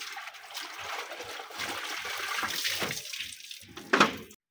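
Clothes being hand-washed in a plastic bucket: wet cloth swished and squeezed in the water, which sloshes and splashes, while a hose runs water into the bucket. A louder splash comes about four seconds in, and then the sound cuts off suddenly.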